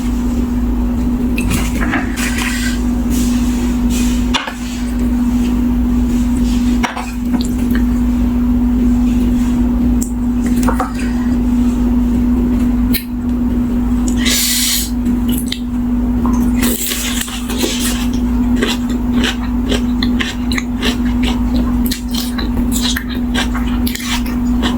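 Eating sounds: cutlery clinking against a dish in many short clicks, with a few brief noisy bursts, over a steady low hum.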